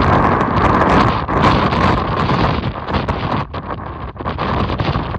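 Strong wind buffeting the microphone: a loud, continuous rush with a heavy low rumble and brief dips.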